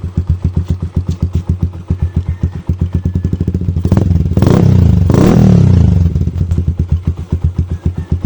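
Kawasaki Rouser LS135's single-cylinder four-stroke engine through an Akrapovic slant-type 51mm slip-on exhaust without its silencer insert, idling with a loud, even pulse. About four seconds in it is revved once and held briefly for about two seconds, then drops back to idle.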